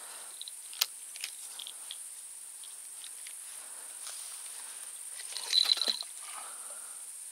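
Insects chirring steadily in the grass, a thin high-pitched hiss, with a few sharp clicks and a short, louder rattle of ticks about five and a half seconds in.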